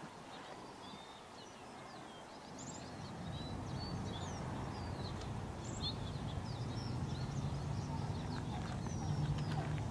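Small birds chirping, with many short, quick high notes scattered throughout. A low steady rumble underneath grows louder about a third of the way in.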